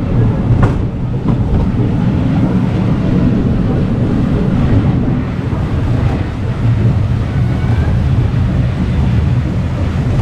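An amusement park ride running with a steady low rumble, with wind buffeting the microphone; a short click sounds under a second in.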